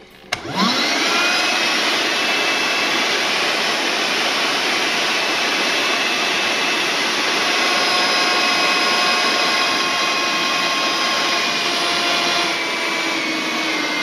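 Loftek cordless handheld car vacuum switched on with a click. Its motor spins up in a rising whine over about the first second, then runs steadily with an even rushing noise and a high whine on a full battery charge. The tone changes slightly near the end.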